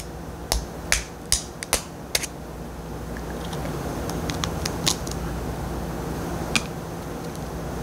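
Small plastic spoon tapping and picking at a raw eggshell: a run of sharp clicks, several close together at first, then a few scattered ones, as a small hole is chipped in the shell to let out the egg white.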